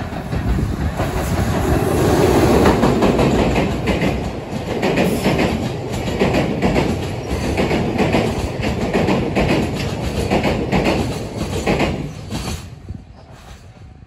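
Electric train passing, its wheels clicking rhythmically over rail joints. The sound builds over the first couple of seconds and drops away sharply near the end.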